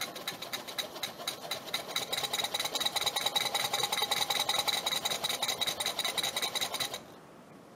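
Small homemade twin-piston air compressor, driven by a brushless motor through a 4:1 belt reduction, running and pumping air: a fast, even pulsing of piston strokes with a steady high tone over it, growing louder over the first few seconds as pressure builds. It cuts off suddenly about seven seconds in.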